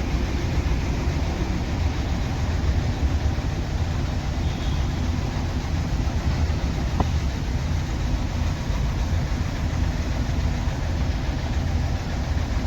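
Nissan Terrano diesel engine idling unevenly, misfiring with a knocking sound: the mechanic blames an injector that is not working properly, and the scan reads code P0203, injector circuit open on cylinder 3.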